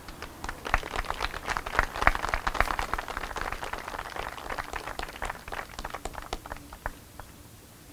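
A crowd applauding. The clapping swells over the first two seconds, then thins out to scattered claps and stops near the end.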